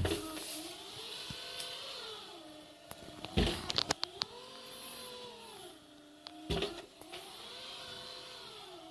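Everybot RS500N wet-mop robot cleaner running, its motors whining with a pitch that falls and rises in slow repeating cycles as the spinning mop pads steer it. A cluster of loud knocks comes about three and a half seconds in, and another thump past the middle.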